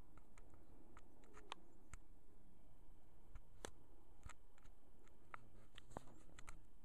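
Faint, irregular clicks over a low rumble: handling noise from a handheld camera.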